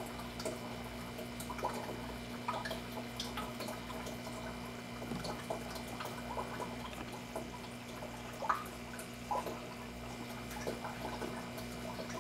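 Aquarium water trickling, with irregular small drips and splashes over a steady hum.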